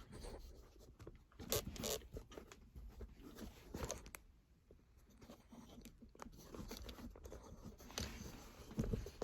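Faint, scattered handling noises in a tractor cab: clicks, scrapes and rustling, with sharper knocks about one and a half seconds in, around four seconds and near the end.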